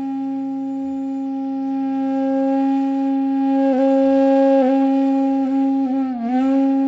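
Background music: a solo flute-like wind instrument holding one long steady low note, with two small flicks of ornament in the middle and a slide down in pitch near the end.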